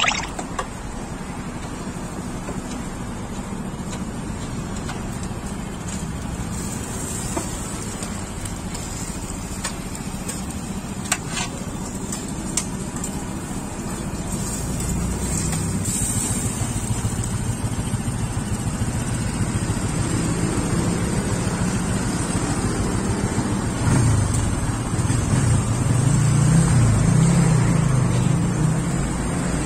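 Steady road traffic running by, with a heavier vehicle's engine growing louder and passing near the end. There are a couple of light clicks around the middle.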